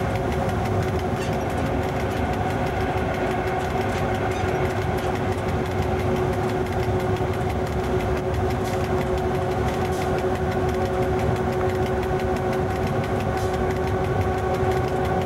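Cab noise of an FS E.656 electric locomotive running at speed: a steady low rumble of the wheels on the track with a constant hum of several steady tones from the locomotive's running gear.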